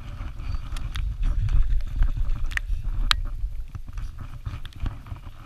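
Wind buffeting the microphone: a loud, uneven low rumble, heaviest in the first half, with a few sharp clicks.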